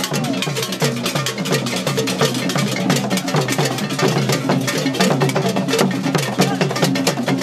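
Akom drum ensemble playing a fast, dense, steady rhythm on apentema and atumpan drums, with many sharp strokes each second.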